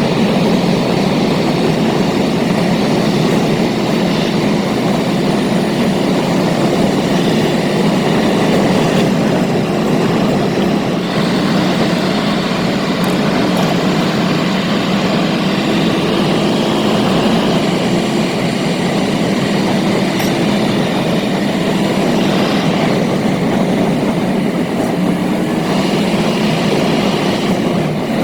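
Car driving at speed: a steady rumble of road and engine noise that hardly changes.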